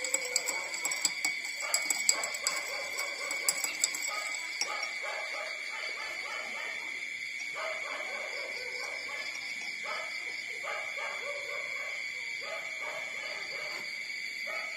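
Newborn puppies, about 18 days old, whimpering and squeaking in short cries repeated every second or so while nursing. Over it runs a steady high-pitched drone, with a scatter of sharp clicks in the first few seconds.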